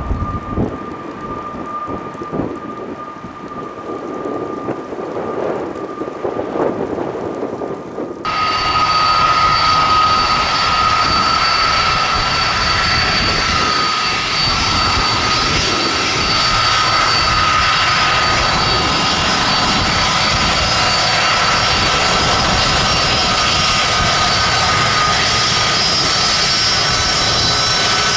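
Jet airliner engines running, with several steady high whining tones over a broad rush. The sound is quieter and uneven at first, then jumps suddenly louder about eight seconds in and holds steady.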